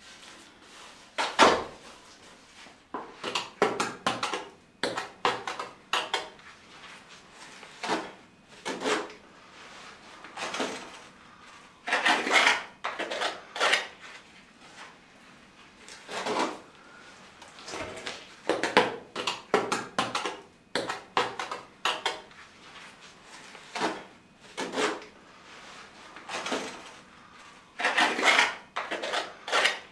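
Grout being scraped and pressed into the joints of a stone flagstone floor with a hand tool: irregular scraping strokes, some in quick runs of short strokes, with short pauses between.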